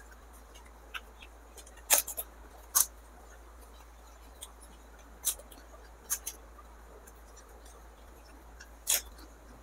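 Crisp pani puri shells cracking and crunching: about eight short, sharp crackles at uneven intervals, the loudest about two and three seconds in and near the end.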